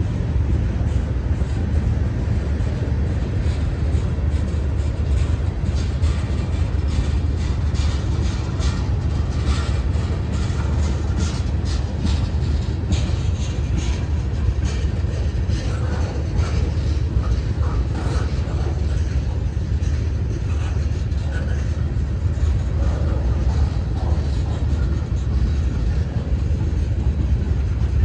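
Freight train rolling past: a steady low rumble with clusters of wheel clicks over the rail joints through the middle.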